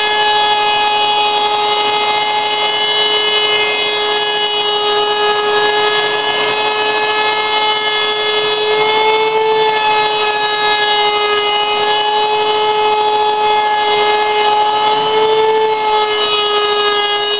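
Router running at speed in a router table, cutting wood molding: a steady high whine over a rasping cutting noise. The whine rises slightly in pitch twice, briefly, about halfway through and near the end.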